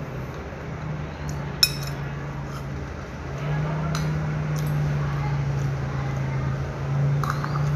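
A few sharp clinks of a metal spoon against a ceramic bowl during a meal, the loudest about a second and a half in, over a steady low hum.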